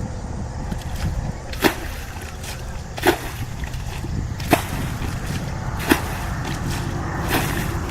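Five sharp slapping strikes, evenly spaced about a second and a half apart, over a steady low rumble.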